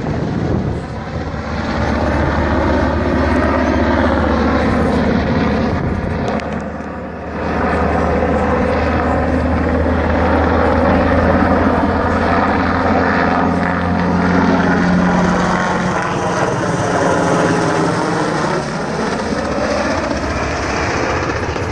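Sikorsky UH-60 Black Hawk twin-turbine helicopter flying overhead: a loud, steady rotor beat and engine noise whose tone sweeps down and back up as it moves across the sky.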